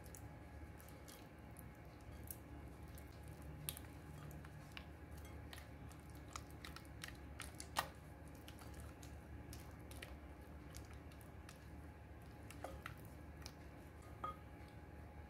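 Silicone spatula working soft cream cheese in a glass bowl: faint squelching with many small clicks, and a few sharper ticks, about three, spread through.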